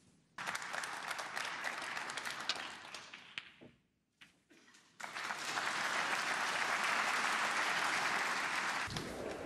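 Audience applauding in two spells. The first starts about half a second in and dies away after about three seconds. The second, louder spell starts about five seconds in and stops abruptly near the end.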